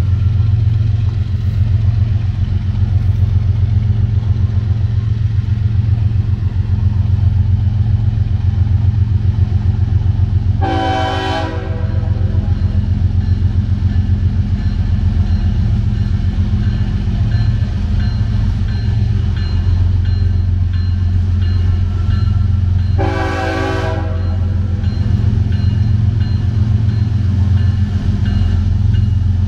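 Approaching freight train's lead diesel locomotive rumbling steadily, sounding two blasts of its multi-chime horn about twelve seconds apart. From about halfway through, the grade-crossing bell rings at an even rapid pace.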